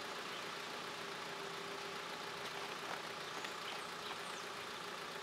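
Steady low machine hum, with a few faint bird chirps in the middle.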